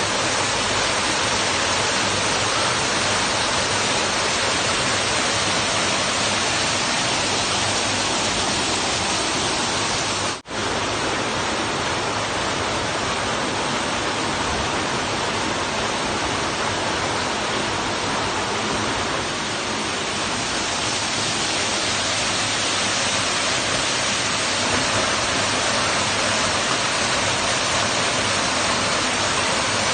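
Waterfall rushing steadily, a loud, even roar of falling water. It breaks off for an instant about ten seconds in.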